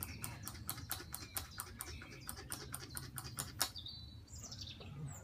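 Hand-pumped squirter can clicking rapidly, about five strokes a second, with faint high squeaks, as fluid is squirted into the engine. The clicking stops with one louder click about three and a half seconds in, followed by a few short high chirps.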